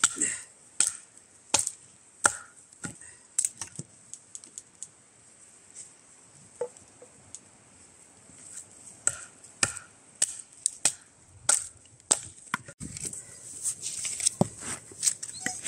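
Firewood being chopped, a run of sharp wooden knocks. They come about three every two seconds at first, thin out in the middle, then pick up again in a quicker, uneven run near the end.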